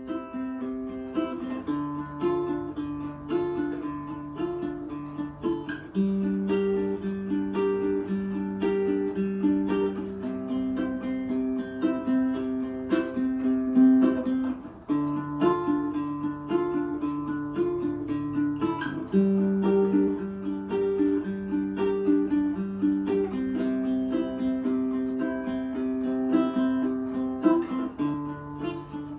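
Background instrumental music with a repeating chord pattern.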